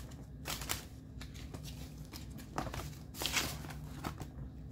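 Paper banknotes and plastic binder pockets rustling as cash is handled and tucked into a ring binder, in irregular short rustles, loudest about half a second in and again a little past three seconds.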